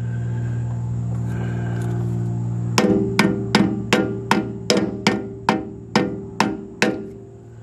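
Hammer tapping on a plastic driver to seat a new lower king pin seal in a Dana 60 steering knuckle. About a dozen quick, sharp taps at roughly three a second start about three seconds in and stop shortly before the end, over a steady low hum.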